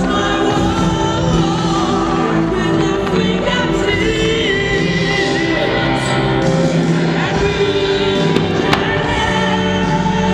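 Music with singing and long held chords, the soundtrack of a fireworks display, with a couple of sharp firework bangs about eight seconds in.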